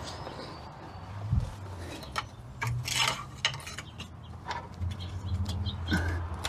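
Irregular light metallic clicks and scrapes of a steel pry bar working against the front brake caliper and pads of a Ford Ranger.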